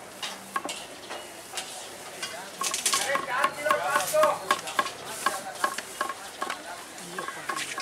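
Kitchen knife chopping bell peppers into strips on a wooden chopping block: a quick, even run of sharp taps, about four a second, with faint voices behind.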